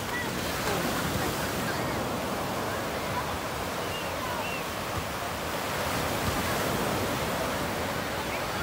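Small surf breaking and washing up a sandy beach in a steady rush. Over it are the faint, overlapping voices of a large crowd of bathers.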